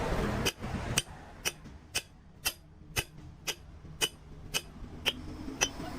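Steady mechanical ticking, about two sharp ticks a second, evenly spaced, over a low background hum; a louder rustling noise fills the first half-second.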